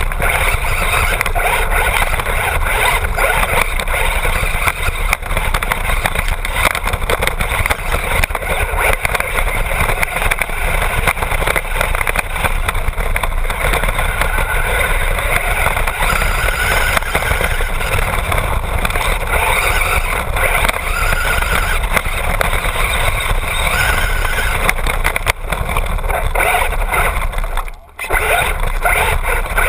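Traxxas Bandit RC buggy with a brushless motor driving fast over dirt, heard from a camera mounted on the car: a loud, steady rough noise of tyres on the ground and the chassis shaking. It drops out briefly near the end.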